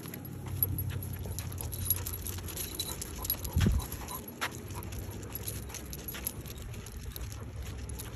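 Two basset hounds walking on leashes along a concrete sidewalk: many light clicks and jingles of harness hardware and paws, over a low rumble on the microphone. One louder thump comes about three and a half seconds in.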